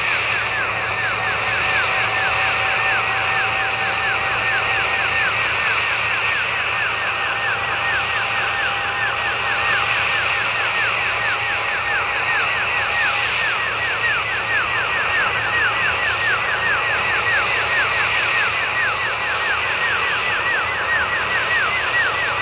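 Mi-6 heavy helicopter's D-25V turboshaft engines running with the type's characteristic whistle. Steady high whine tones sit under a whistle that wavers up and down several times a second.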